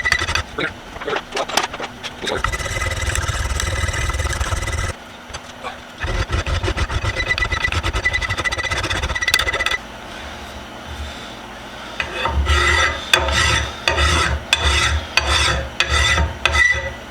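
Hand file rasping across a small metal vise's anvil surface to flatten it. The strokes come in two long, quick runs with a short break between them. After a pause there are about seven slower, separate strokes near the end.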